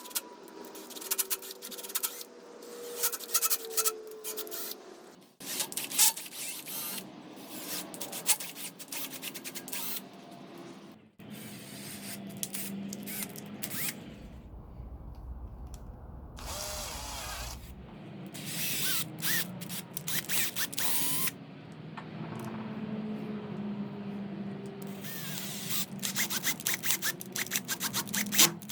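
Workshop tool noises: repeated clicks, knocks and scraping or rubbing, changing abruptly every few seconds, with a short low rumble in the middle.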